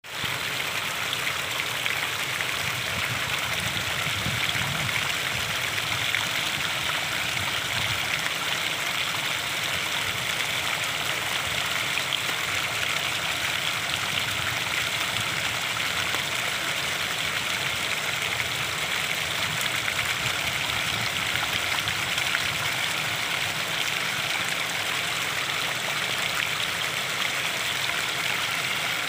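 Small waterfall splashing steadily: an even, continuous rush of falling water.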